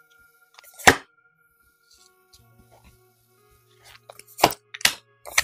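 Tarot cards handled on a tabletop: one sharp card slap about a second in as a card is laid down, then a quick run of three taps and clicks from the deck near the end. Faint background music under it.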